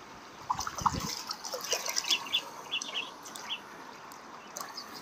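Water trickling, with a scatter of small splashes and drips over the first few seconds and a low knock about a second in.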